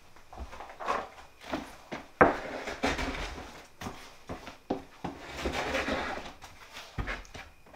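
A plywood booth door being handled and pulled open: a sharp wooden knock about two seconds in, two longer scraping rubs as the door swings, and scattered lighter knocks, with another near the end.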